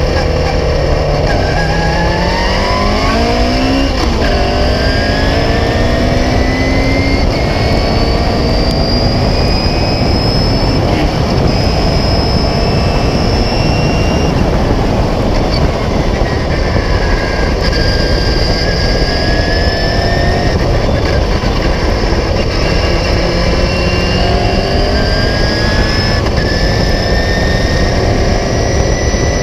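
Onboard sound of a 1976 Beagle Mk4 Clubmans race car's engine at racing speed. It rises in pitch as it pulls through the gears, with a sharp drop about four seconds in at a gear change, then eases off and pulls again several times, over a heavy low rumble of wind and road noise.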